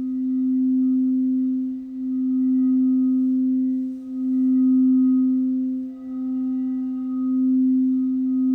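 Crystal singing bowl tuned to C, the root chakra bowl, sung by rubbing around its rim: one steady, pure low tone with faint higher overtones, swelling and dipping in loudness about every two seconds.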